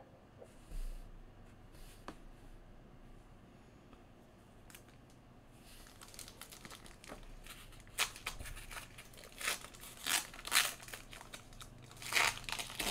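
Foil trading-card pack wrapper being handled and torn open: quiet at first with a few faint clicks, then crinkling and tearing in short bursts from about halfway, loudest near the end.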